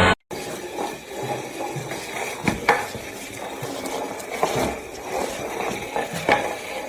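A steady hiss with about half a dozen light clicks and clinks, like small hard objects being handled or stirred.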